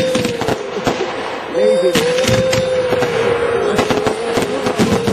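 Aerial fireworks: a rocket going up and shells bursting with repeated bangs and crackling, over a steady, slightly wavering tone.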